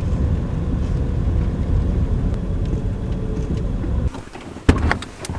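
Camper van driving, a steady low engine and road rumble that drops away about four seconds in as it comes to a stop, followed by a single sharp click.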